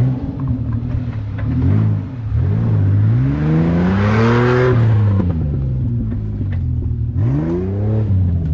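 Engine of a 4x4 off-road vehicle revving up and down repeatedly on an obstacle run. It climbs to its highest pitch about four seconds in, with a rush of noise at the peak, and revs up again near the end.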